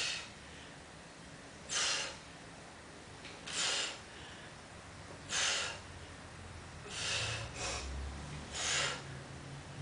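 A man's sharp, forceful breaths through the mouth and nose, about seven of them, one every one and a half to two seconds, with the effort of lifting a barbell through curl repetitions.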